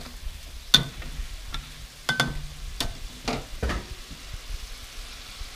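Metal spatula scraping and knocking against a steel wok, about seven sharp clinks in the first four seconds, one ringing briefly, over a steady faint sizzle of sauce simmering in the wok.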